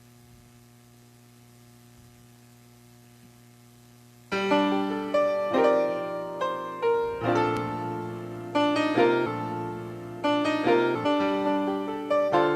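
A faint steady hum, then about four seconds in piano music starts, with chords struck one after another and left to fade.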